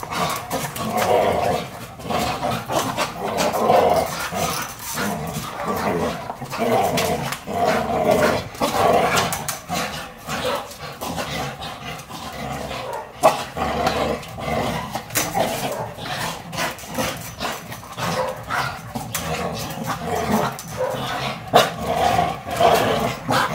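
Two pit bulls growling as they bite and tug on a hanging rubber tyre, with many short knocks and scuffs throughout.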